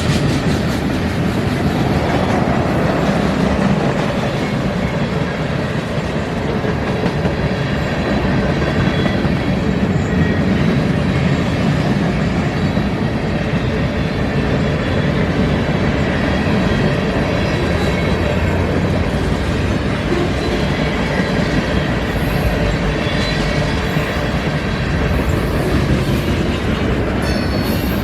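Freight train rolling past, a steady rumble with the wheels clicking over the rail joints.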